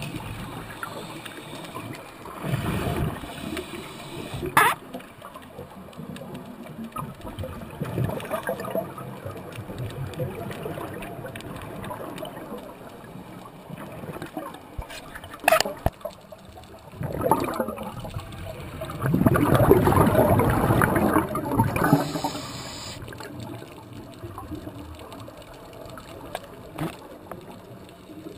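Scuba regulator exhalations recorded underwater: bubbling, gurgling rushes every few seconds, the longest and loudest about twenty seconds in. Two sharp clicks are heard, one about five seconds in and one near sixteen seconds.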